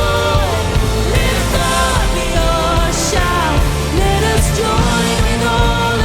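Live church worship band playing, full and steady, with a melody line sliding between notes over a dense low end.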